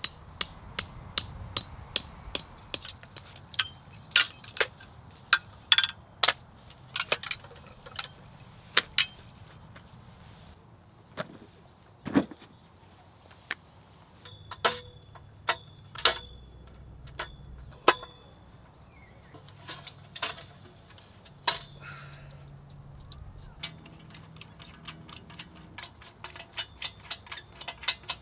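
Camping gear being set up by hand: a run of sharp metal clicks, clanks and knocks from poles, stands and an aluminium table frame being fitted together. The clicks come several a second at first, thin out in the middle where a few ring briefly, and crowd together again near the end.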